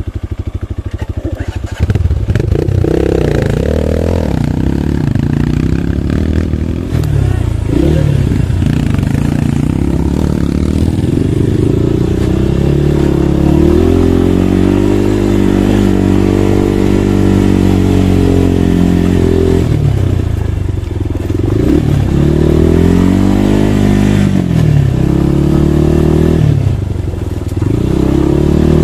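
Dirt bike engine running under load on a trail, its pitch rising and falling repeatedly as the throttle is opened and closed, with a held high stretch about halfway through.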